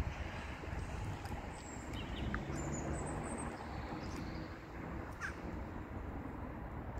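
Outdoor ambience: a steady low rumble with a faint hum through the middle, and a few short, faint bird chirps.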